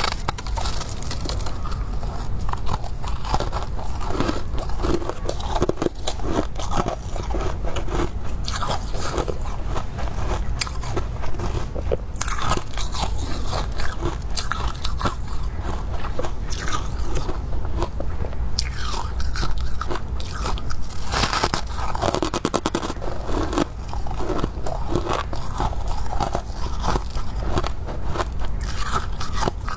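Crunchy freezer frost being bitten and chewed, a dense, continuous run of crisp crunches.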